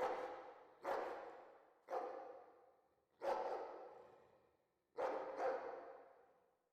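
A dog barking in the distance: six barks at uneven intervals, two of them close together near the end, each trailing off in a long, fading echo.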